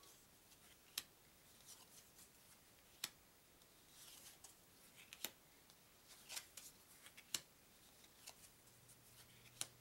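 Faint handling of UNO playing cards: cards being flipped off the deck one at a time. There are about five short, sharp clicks roughly two seconds apart, with light rustling between them.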